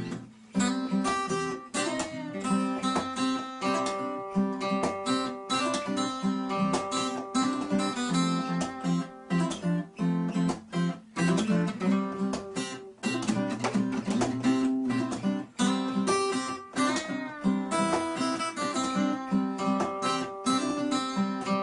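Background music played on acoustic guitar, a steady run of plucked notes and chords.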